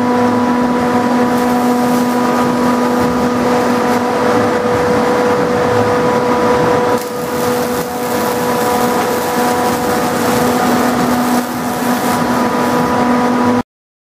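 Roll forming and robotic welding line running: a loud, steady machine drone with a constant hum. It dips briefly about seven seconds in and again near twelve seconds, then cuts off suddenly near the end.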